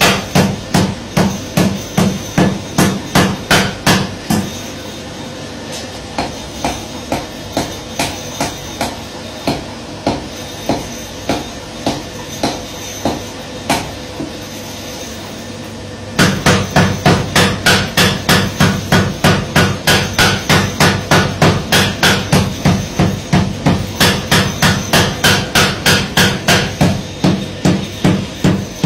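Mechanical power hammer pounding iron in a steady rapid rhythm, about three blows a second. From about four seconds in the blows turn lighter and quieter, and they return to full force at around sixteen seconds.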